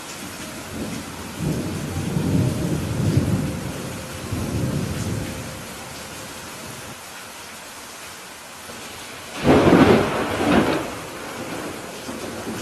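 Steady rain with a low roll of thunder starting a second or two in and fading out, then a louder, sharper clap of thunder about three-quarters of the way through.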